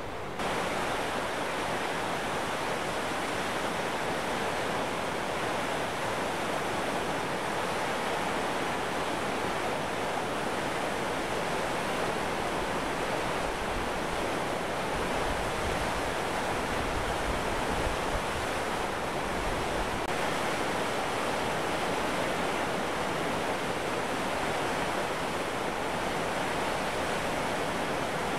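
Creek water pouring over a low mill dam and churning in the whitewater below: a steady rushing that starts abruptly just after the beginning and then holds even.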